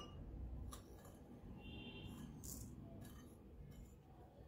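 Faint, scattered clinks of a metal spoon and fork against glass bowls, with one short ringing clink about two seconds in.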